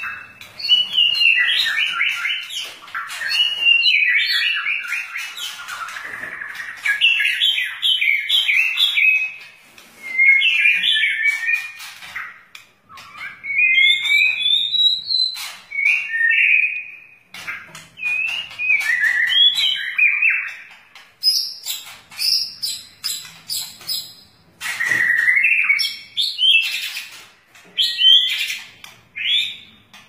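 White-rumped shama (murai batu) singing a long, varied song of whistled and chattering phrases that glide up and down, broken by many short sharp clicks between the phrases.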